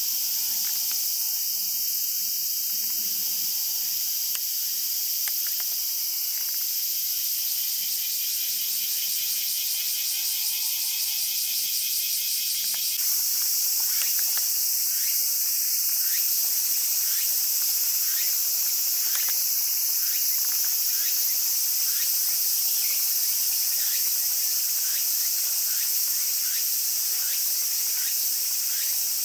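A steady, high-pitched shrilling insect chorus. A fast pulsing buzz joins in about a quarter of the way through and stops abruptly near the middle, where the sound jumps slightly louder. In the second half, faint short rising chirps repeat every second or so.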